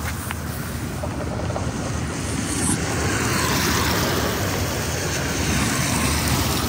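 Steady hiss of heavy rain and wet-road traffic on a city street, growing a little louder about two to three seconds in.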